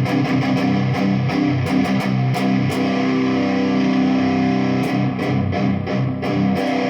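Jackson Dinky electric guitar being played, with notes and chords picked and left to ring. The tone knob is turned fully open, with a 153J (0.015 µF) capacitor wired to the tone control.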